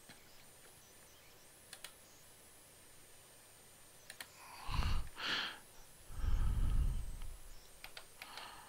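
A few faint computer mouse clicks, then, about halfway through, two short breathy puffs and a longer low, rumbling sigh close to the microphone.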